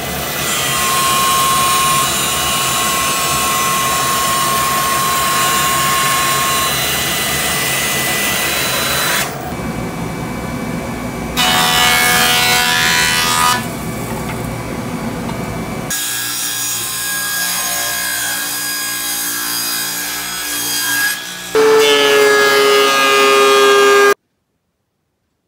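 A run of woodworking machines cutting walnut, one after another. First a bandsaw cuts through a rough walnut slab. Then a jointer planes a walnut board, louder while the board passes over the cutterhead. Last a DeWalt benchtop thickness planer runs with a strong hum and gets louder as it cuts, then the sound stops abruptly near the end.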